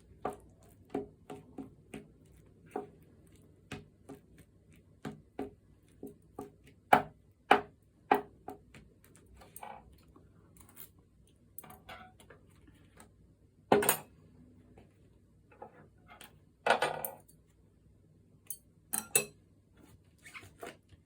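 Eating utensils clicking and tapping against dishes during a meal: an irregular string of short sharp clicks, with a few louder knocks about seven, fourteen and seventeen seconds in.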